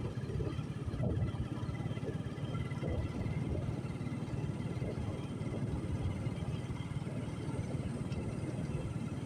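Motorcycle running at low speed along a dirt track: a steady low rumble of engine and wind.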